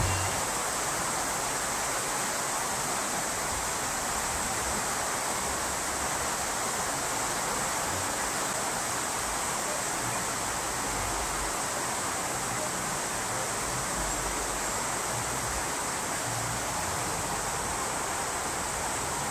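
A river running steadily: an even, unbroken rush of flowing water.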